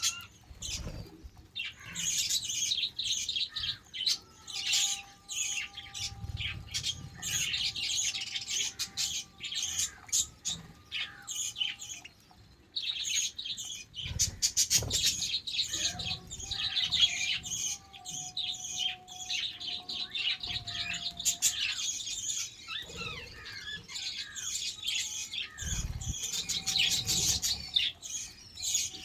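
A flock of budgerigars chattering and chirping in fast, dense bursts, with brief lulls about a second in and again around twelve seconds in.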